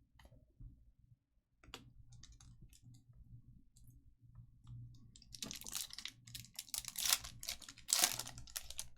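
Trading cards and their packs being handled: scattered light clicks and taps, then from about five seconds in a louder stretch of rustling and crinkling that peaks twice near the end.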